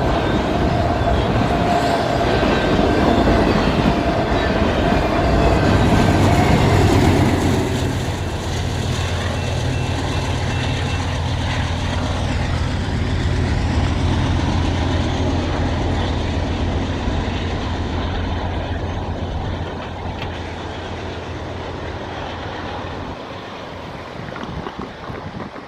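Fast BNSF freight train of autorack cars passing close by, its wheels clattering on the rails. The rear diesel locomotive goes by about six seconds in with a steady low engine rumble, then the whole train slowly fades as it moves away.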